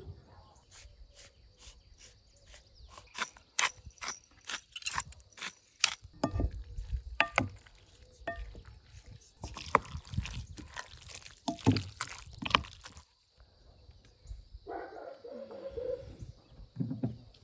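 A wooden spoon tossing a freshly dressed chopped vegetable salad in a large glass bowl: a run of sharp clicks against the glass, then denser scraping and squelching of the wet vegetables for several seconds.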